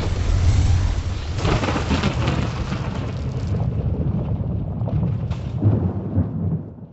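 Sound effects for an animated logo ident: a deep, noisy rumble with whooshes and a few sharp hits, fading away at the end.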